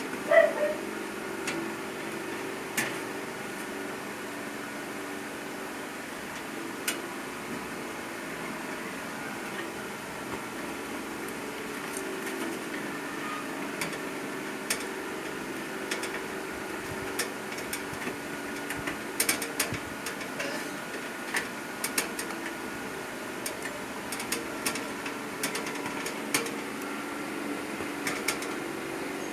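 Hand screwdriver fastening screws into a PC case and motherboard: scattered small metallic clicks and taps, irregular and some sharper than others, over a steady low hum.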